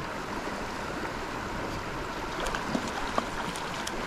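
Steady rush of river water, with a few faint sharp ticks and small splashes in the second half as a hooked trout thrashes at the surface.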